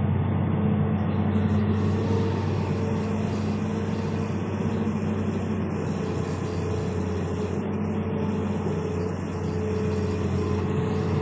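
Hitachi hydraulic excavator's diesel engine running steadily, a low even hum, as the machine swings its upper body around after dumping a load of gravel.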